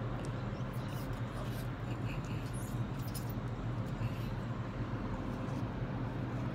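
Steady low outdoor rumble on a phone microphone, with a few faint short squeaks from a sulphur-crested cockatoo and scattered small clicks.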